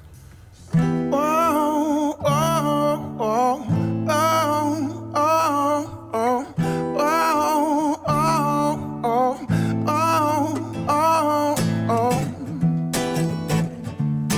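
Live band playing the instrumental intro of a soul-blues song: strummed guitar over steady low bass notes, with a lead line of bending, wavering notes in repeated phrases. The music comes in loud about a second in after a quiet start.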